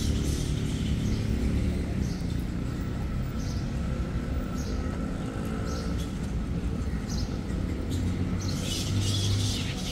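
Birds chirping in short, separate calls that become denser near the end, over a steady low hum of city traffic.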